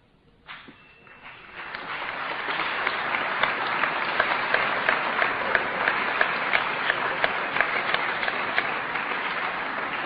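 Audience applauding: a few claps about half a second in swell within a couple of seconds into sustained applause from a roomful of people.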